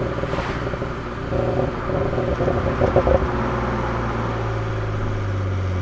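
BMW 135i's N54 twin-turbo straight-six running, its exhaust crackling and popping in uneven bursts for the first three seconds or so, then settling into a steady low engine drone.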